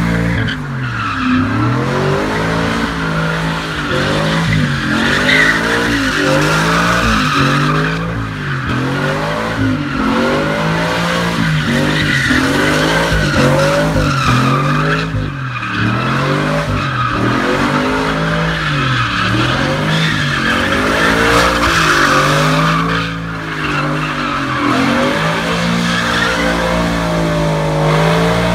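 Pickup truck doing donuts: its engine revs rise and fall about once a second over the continuous screech of spinning rear tyres.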